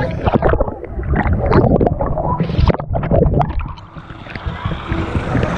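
Water gurgling and sloshing against a camera dipping in and out of the water's surface, muffled with irregular crackles while under; near the end it comes clear and the sound opens into a steadier rush of splashing water.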